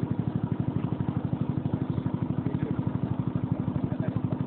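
Small boat engine running steadily at a constant speed with a rapid, even chugging of about a dozen beats a second.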